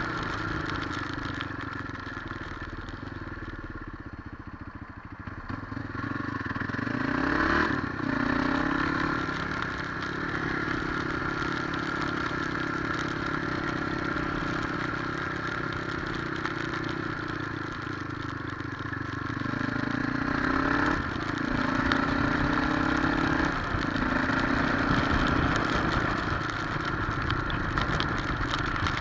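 Motorcycle engine heard from on the bike while riding, under a steady rush of road and wind noise. It runs quieter for a few seconds, then the pitch rises as the bike accelerates about a quarter of the way in. After a steady cruise it rises again about three-quarters through, each rise ending in a sudden drop as the rider shifts up.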